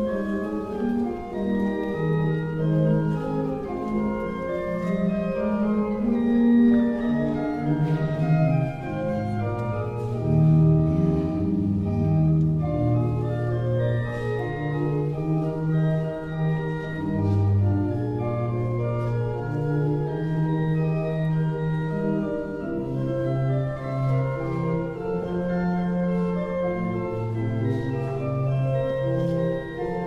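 Church organ playing slow, sustained chords over a slowly moving bass line.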